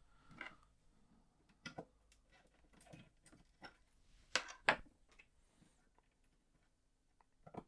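Scattered small clicks and taps of a RAM chip being prised from its socket with a screwdriver and pressed into a socket on a Commodore VIC-20 circuit board. The loudest is a pair of clicks about four and a half seconds in.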